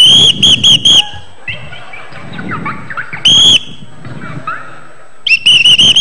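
A whistle blown in short, shrill toots: a quick run of four at the start, a single blast about three seconds in, and another fast run of toots near the end.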